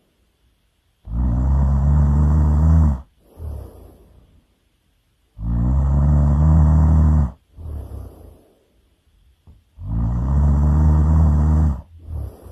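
A person snoring loudly in a slow rhythm: three long, low snores, each about two seconds, coming about four seconds apart. Each is followed by a fainter, sputtering breath out.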